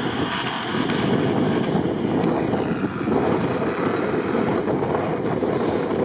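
Strong wind buffeting the microphone in a blizzard: a dense, gusting low rush with no clear engine note.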